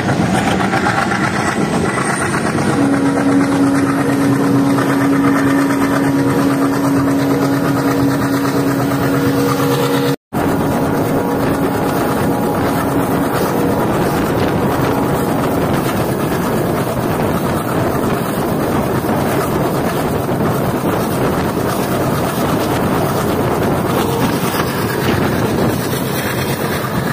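Old diesel locomotive hauling a passenger express at speed, heard from an open coach door: the engine working under power, mixed with wheel-on-rail and rushing-wind noise. A steady droning tone stands out from about three seconds in until about ten seconds, and the sound cuts out for an instant about ten seconds in.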